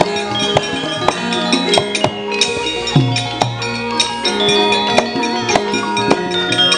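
Javanese gamelan playing an instrumental passage: bronze metallophones and gongs ringing in sustained tones, over frequent sharp knocks and drum strokes. About three seconds in, a low drum note slides down in pitch.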